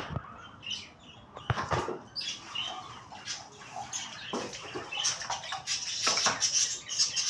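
Kittens moving about: scuffling and rustling, with a few faint, short, high squeaks.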